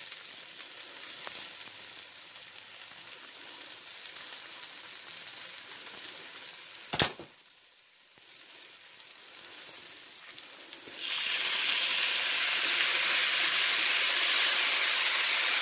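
Breaded chicken pieces sizzling in oil in an uncovered frying pan, with a single click about seven seconds in. From about eleven seconds the sizzle grows much louder and hissier as sauce is poured over the hot chicken.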